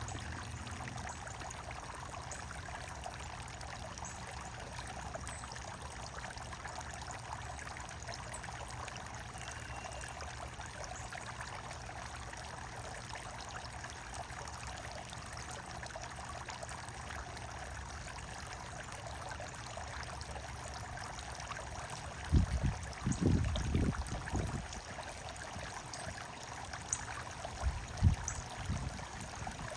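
Steady trickling and splashing of running water, with a few faint bird chirps. A cluster of low, dull thumps about three-quarters of the way through and another near the end stand out as the loudest sounds.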